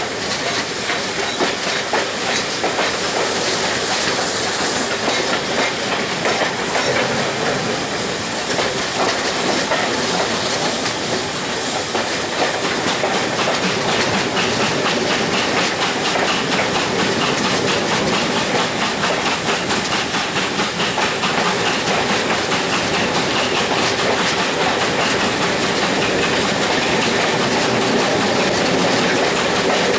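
Steam-hauled passenger train running along the line behind GWR Hall class 4-6-0 No. 6988 Swithland Hall: a steady rushing noise, with the carriage wheels clicking over the rail joints.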